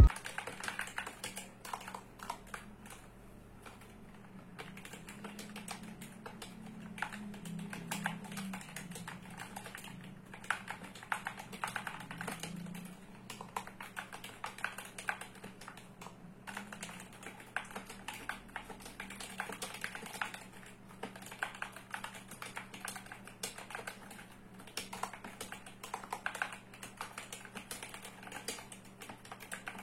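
Typing on an Epomaker SK68 keyboard with optical red linear switches and DSA PBT keycaps: an irregular, continuous run of keystroke clacks over a faint low hum.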